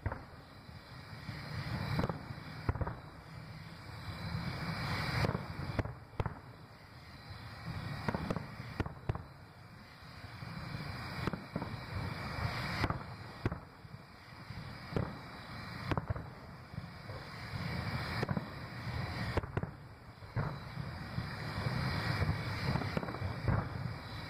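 Aerial fireworks shells bursting one after another: a long, irregular run of booms, at times several close together, over a continuous low rumble between bursts.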